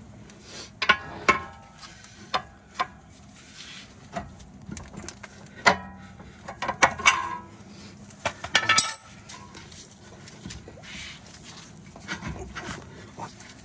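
Irregular metal clanks and clinks as a long steel pry bar levers down on the front lower control arm and knocks against the suspension to free the strut from the knuckle. Some knocks ring briefly; the loudest come about a second in and again around seven to nine seconds in.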